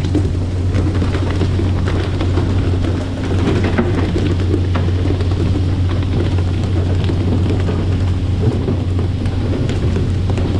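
Steady low drone of a fishing boat's engine under the continuous hiss and splash of water sprayed onto the sea from sprinklers along the hull.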